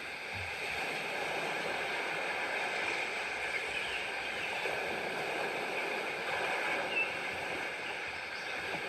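Steady wash of ocean surf, a rushing water noise with no clear breaks.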